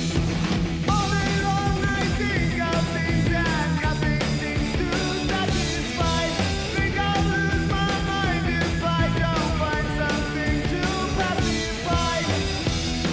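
Background rock music with a sung vocal over a steady drum beat and bass.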